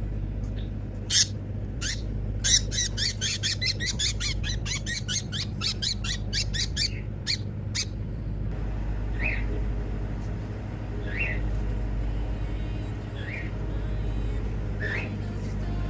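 Parrot calling: a fast run of sharp, shrill squawks for several seconds, then single short calls about every two seconds, over a steady low hum.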